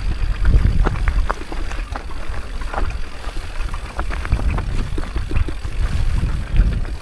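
Mountain bike descending a stony singletrack, heard from the rider's mounted camera: a steady low rumble of wind and trail buffeting the microphone, with many sharp clicks and rattles from the bike jolting over loose stones.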